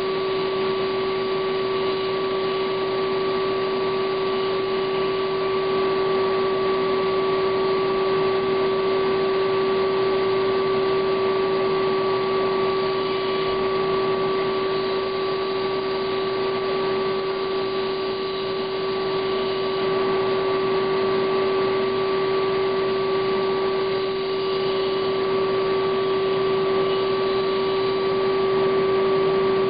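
A steady hum holding two constant pitches over an even hiss, unchanging throughout.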